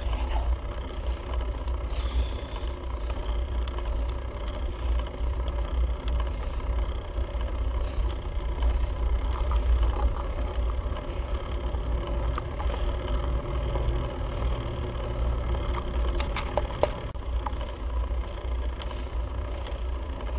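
Steady low rumble of wind and rolling noise on the microphone while cycling uphill, with a few faint scattered clicks.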